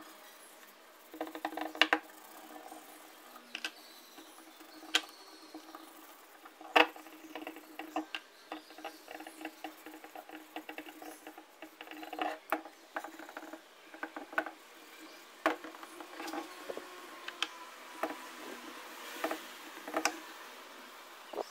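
Irregular sharp taps and clicks, a dozen or more spread throughout at uneven intervals, with quieter rattling between them, as of objects being handled on a work surface.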